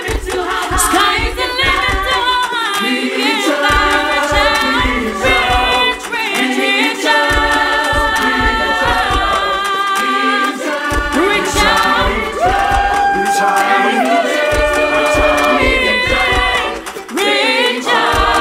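A choir of men's and women's voices singing in harmony, a cappella, with a steady low pulse underneath.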